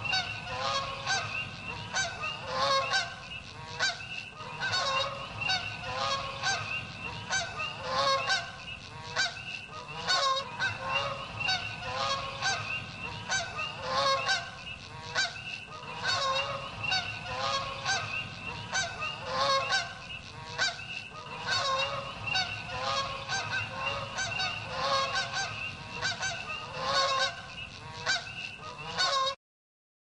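A flock of geese honking, many calls overlapping without a break, cutting off suddenly near the end.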